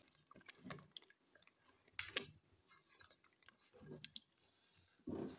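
Spatula stirring chicken pieces through the spiced liquid in a pot: quiet, wet squelching with scattered taps and scrapes. The sharpest comes about two seconds in and another near the end.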